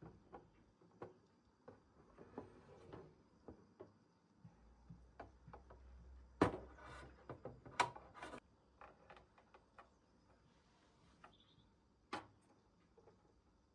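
Light clicks, taps and brief crinkling rustles from handling blind-box packaging and small plastic collectible figures, loudest in a burst of clicks and rustling about halfway through.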